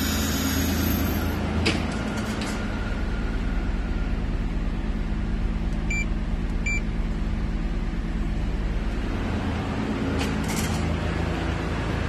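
Turbocharged VQ37VHR V6 idling steadily, with no revving. About six seconds in come two short electronic beeps, a boost controller's buttons being pressed.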